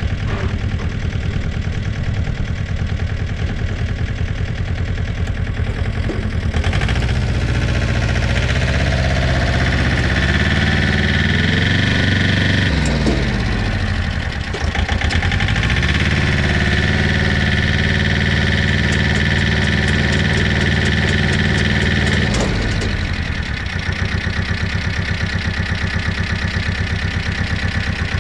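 Engine idling with a rapid, even knocking beat. It is revved up twice, held high for several seconds the second time, and let back down to idle.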